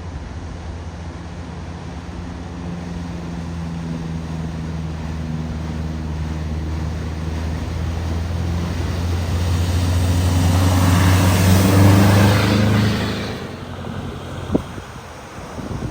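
A car driving through deep floodwater. Its engine hum grows steadily louder as it approaches, then a loud rush of spraying water lasts about three seconds, from around ten seconds in, before the engine sound drops away. A couple of short knocks follow near the end.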